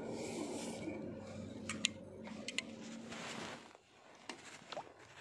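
Close handling noise from a fishing rod and reel: rubbing and shuffling with a few sharp clicks around the middle. It drops to quieter, scattered small sounds near the end.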